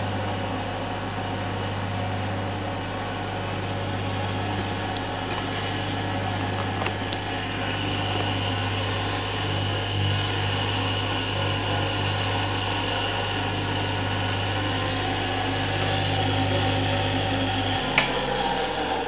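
Restored lathe electric motor running steadily with a strong hum and a faint high whine. About 18 seconds in, a click and the hum stops, and a falling tone follows as the motor spins down.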